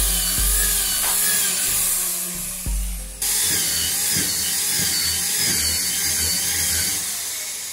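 Corded electric drill boring dowel holes into a gmelina wood door frame, its motor whine wavering in pitch as the bit loads up in the wood. The sound breaks off and starts again a little after three seconds in.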